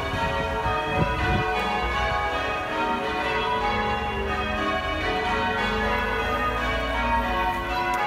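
Church bells ringing in the tower, many bells sounding one after another so their tones overlap continuously. A brief low rumble comes about a second in.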